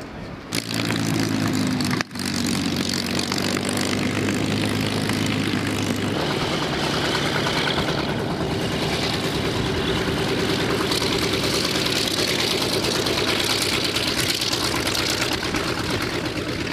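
Vought F4U Corsair's Pratt & Whitney R-2800 radial piston engine running on the ground, propeller turning. A steady engine drone that starts suddenly about half a second in and changes pitch about six seconds in.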